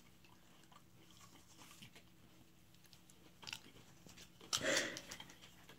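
Children quietly chewing pieces of raw coconut flesh, with faint mouth clicks and a louder crunch about four and a half seconds in.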